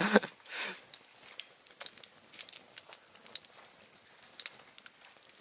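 Faint, irregular crackling: scattered sharp clicks, a few a second.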